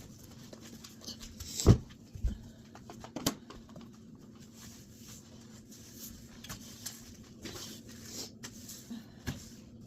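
Household tidying noises: scattered clicks, knocks and rustling over a faint steady hum, with one loud thump a little under two seconds in and two smaller knocks over the following second and a half.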